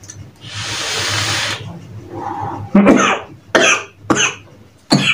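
A deep drag on a vape mod, heard as a steady airy hiss lasting about a second, followed by a series of short coughs as the vapour is blown out.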